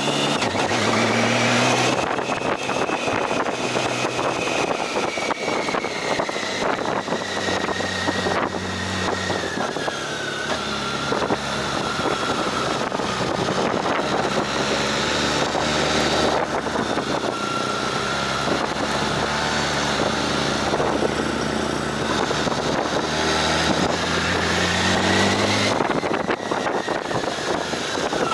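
Motorcycle engine running while riding, its pitch slowly falling and then rising again near the end as speed changes, with wind rushing over the microphone.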